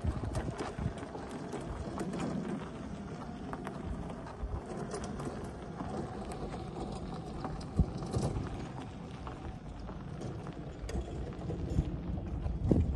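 Crunching and rattling of gravel under the wheels of a light aircraft and its small yellow tow tug as the plane is pulled along, with scattered clicks of stones and footsteps. There are louder knocks about eight seconds in and near the end.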